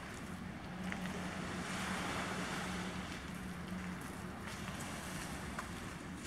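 Wind rushing on the microphone over the distant wash of Lake Michigan surf, swelling and easing. A low steady hum runs under it for the first few seconds.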